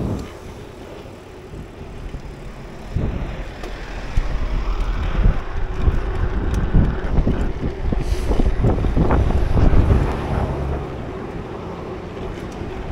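Wind buffeting the microphone of a camera on a moving bicycle: a gusty low rumble that grows louder about three seconds in.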